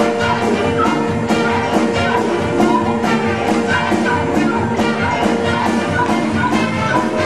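Band music with brass and drums, a steady beat of drum and cymbal strokes running under held notes.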